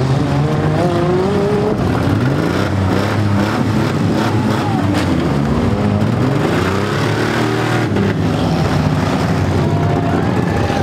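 Several demolition derby cars' engines revving up and down together as they drive around the arena. A few sharp crunches of cars ramming one another come through the middle.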